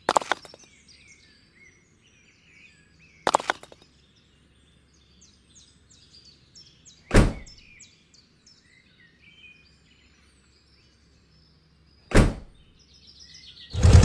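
Four sharp clacks a few seconds apart as miniature bricks and thin boards are set down in a toy tractor's plastic trailer, with faint birdsong chirping in the background.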